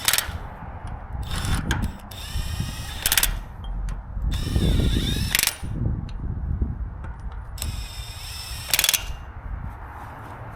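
Handheld power tool run in about five short bursts, its motor speeding up and winding down each time.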